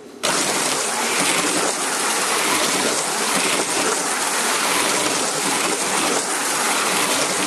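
HO-scale slot cars running together on a multi-lane track under power: a steady rushing, buzzing hiss from their small electric motors, gears and pickups on the rails. It starts abruptly about a quarter second in.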